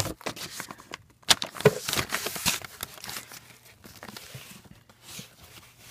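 Cardboard LP record sleeves being flipped through and slid against one another in a wooden record bin: a run of papery rustles and scrapes with a couple of sharper knocks, busiest in the first half and fainter later.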